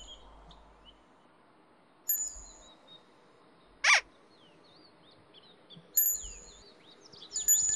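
Birds chirping and singing in the background, with a few brief high ringing tones and one quick falling whistle about four seconds in.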